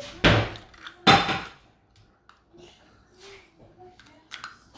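Two loud knocks of plastic LEGO parts about a second apart, then light clicks of pieces being handled and pushed together.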